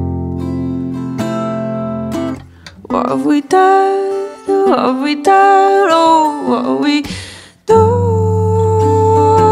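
Acoustic guitar chords strummed and ringing, dropping away about two seconds in; a woman then sings a phrase with sliding pitch, and near the end holds one long steady note over the returning guitar.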